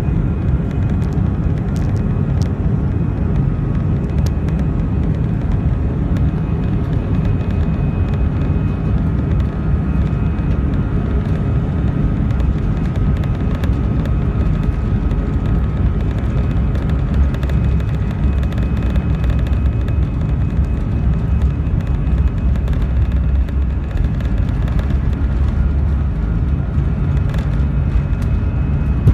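Airbus A318 jet engine cabin noise heard through the window seat over the wing: a steady low rumble with a faint even whine above it, the CFM56 engines at low, unchanging taxi power. Occasional small ticks and rattles sound over it.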